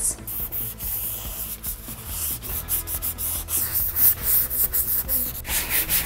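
Sanding block rubbed over the painted steel body of a vintage refrigerator in quick back-and-forth strokes, a scratchy hiss, smoothing the rough old finish to prep it for paint.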